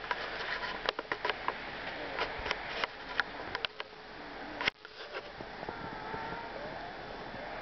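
Footsteps crunching in deep snow: a string of sharp, irregular crunches for the first four or five seconds, then steady outdoor hiss with a few faint, thin wavering tones.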